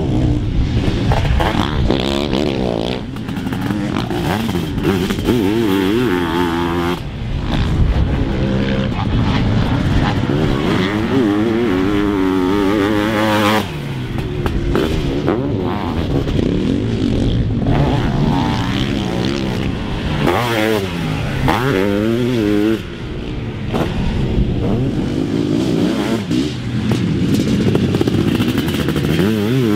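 Sidecarcross racing outfits' motocross engines revving hard on a dirt track. The pitch rises and falls over and over as the riders accelerate, shift and back off, with a few sudden changes in level.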